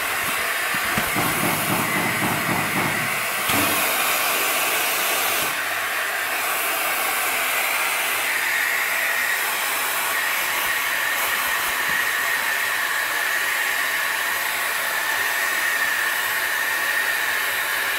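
Compressed-air vacuum system hissing steadily as a bellows vacuum pad grips a woven plastic sack. The hiss brightens about three and a half seconds in, and a faint steady whistle joins it about halfway through.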